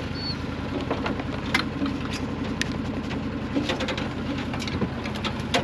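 Side-by-side UTV engine idling steadily, with scattered sharp clicks and knocks over it.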